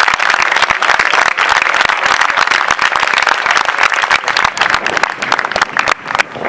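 Crowd applauding, the clapping dense and steady, thinning out a little near the end.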